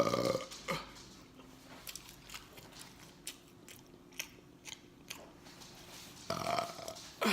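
Human mouth sounds: a burp trails off at the start, then soft clicks and smacks of chewing, and near the end another burp about a second long.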